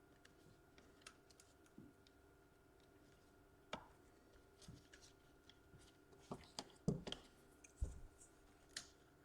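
Faint, scattered clicks and light taps of laptop parts and small tools being handled during reassembly, a cluster of sharper knocks about two-thirds of the way through, over a low steady room hum.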